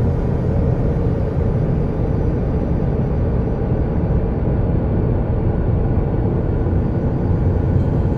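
Steady, dense low rumbling drone, like the eerie 'planet sound' recordings said to come from space, with a faint hiss above it. It is unchanging throughout.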